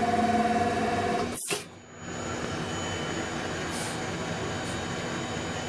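Steady electric motor whine from an automated tool-prep station. It cuts off abruptly about a second and a half in and gives way to a lower, even machine hum.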